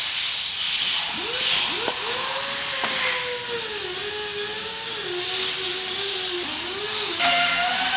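Steady hissing noise with a wavering, humming tone underneath and a few light clicks.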